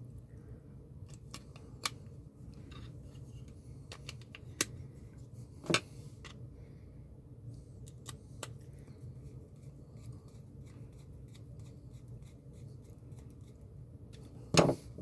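Hands stripping plastic wrap off AAA batteries and handling the small plastic tester: scattered small clicks and crinkles, with a few sharper clicks and a louder clack near the end.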